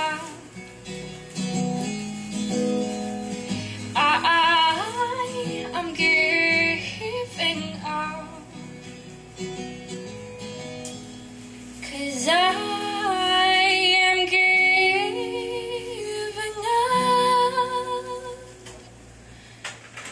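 Live female voice singing long, wavering held notes over acoustic guitar accompaniment.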